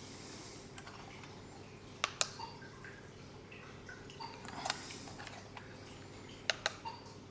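A few sharp clicks and light taps, two close together about two seconds in and another pair near the end, over a steady low hum.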